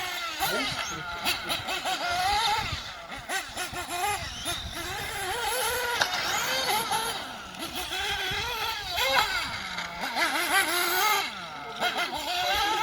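Tekno NB48 2.0 nitro RC buggy engine revving up and dropping back again and again in quick surges, a high buzzing whine that keeps rising and falling in pitch as the car is driven hard around the track.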